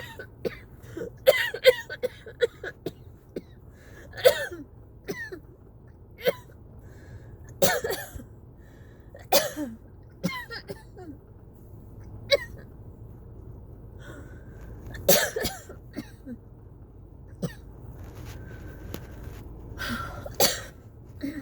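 A person coughing over and over during a cough-variant asthma attack. There is a quick run of coughs near the start, then single coughs and short bursts every second or few seconds.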